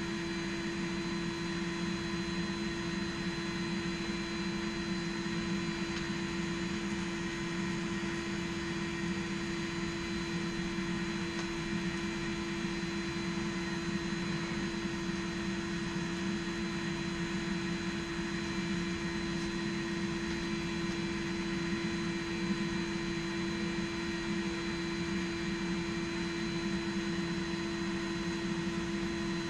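Steady hum and whine of a forge blower's electric motor, running without change.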